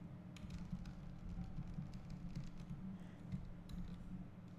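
Computer keyboard keys and mouse buttons clicking now and then, a few short separate clicks, over a faint low steady hum.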